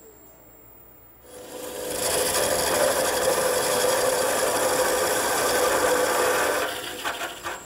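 Parting tool cutting a sizing groove into a spinning ash blank on a wood lathe: a loud, steady scraping hiss with a faint steady tone underneath. It starts about a second in and trails off near the end as the tool is pulled away.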